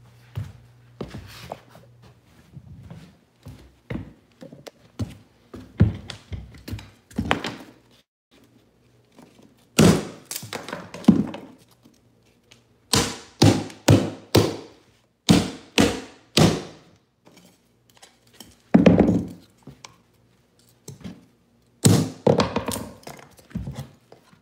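Hammer driving the nails of wooden carpet tack strip into a plywood subfloor: light taps at first, then loud, sharp strikes in quick runs of several blows with short pauses between.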